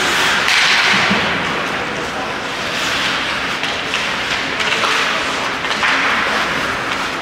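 Ice hockey skates scraping across rink ice in repeated hissing swells, with a few light taps in between.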